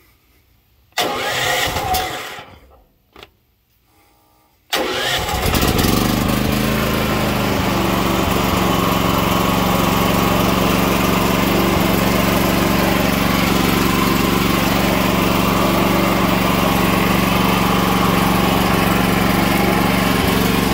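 Predator 8750 inverter generator's engine being started cold on choke: a first short attempt about a second in does not catch, then about five seconds in the engine fires and settles into steady running.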